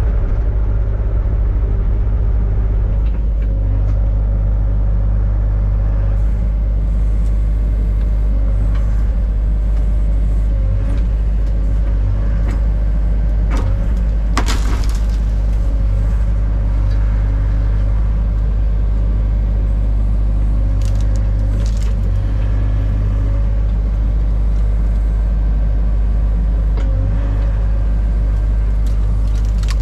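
Diesel engine of a John Deere 60G mini excavator running steadily, with a few sharp knocks, the loudest about halfway through.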